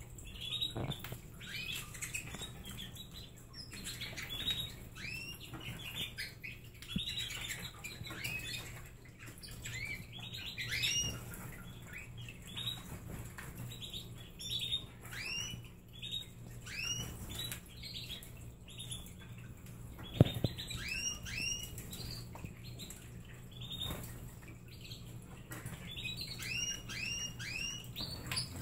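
Pet canaries chirping: runs of short call notes that rise quickly and hook over, repeated throughout over a steady low hum. A single sharp knock about twenty seconds in.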